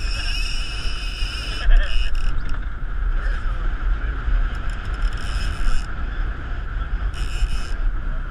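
Strong wind buffeting the action camera's microphone on an open boat, a heavy low rumble, broken by several short stretches of high buzzing.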